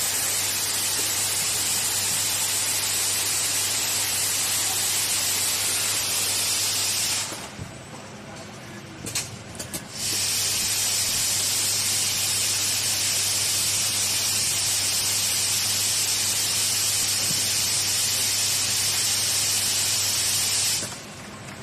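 Automatic transformer and coil soldering machine running with a steady hiss over a low hum. The hiss cuts out for about three seconds, when a few clicks are heard, then resumes and cuts out again near the end.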